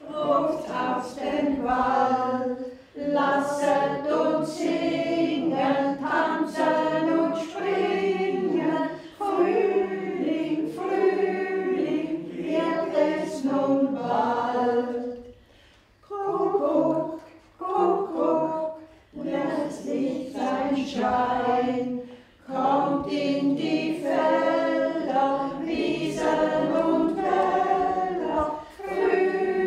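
A group of elderly amateur singers singing an old song together without accompaniment, in phrases separated by short breaths, with a brief pause about halfway through.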